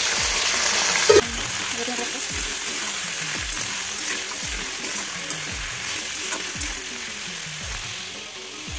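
Diced potatoes sizzling in hot oil in an aluminium kadai, loudest for the first second or so and then settling to a steady sizzle, with a metal spatula stirring them.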